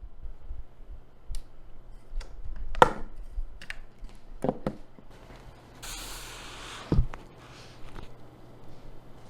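Scattered clicks and knocks of keyboard parts being handled and fitted during a custom keyboard build, with a louder knock about three seconds in and a dull one about seven seconds in. A short hiss, like a spray, comes about six seconds in.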